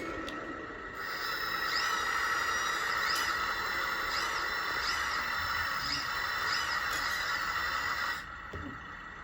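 Hydraulic pump of a 1/14 RC backhoe loader whining steadily as the model works, with short rising-and-falling squeals over it. It starts about a second in and cuts off suddenly after about eight seconds.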